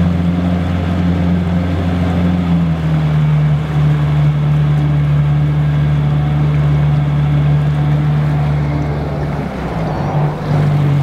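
Tiller-steered outboard motor running at speed, driving an aluminum jon boat across open water with a steady drone; the engine note settles slightly lower about three seconds in.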